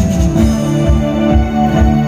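Live band music: held synthesizer chords over a steady kick drum beating about twice a second. The busier, denser playing thins out within the first half second.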